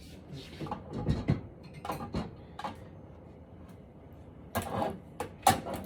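A series of knocks and clatters from objects being handled, with a louder group of knocks near the end.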